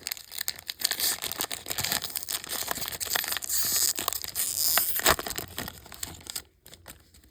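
Trading card pack wrapper being torn open and crinkled by hand: a continuous run of crackling and tearing that stops about six and a half seconds in.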